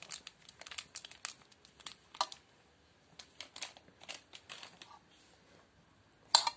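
A thin plastic spice sachet crinkling in the hand as masala powder is shaken out of it: a run of irregular sharp crackles, with one louder crackle near the end.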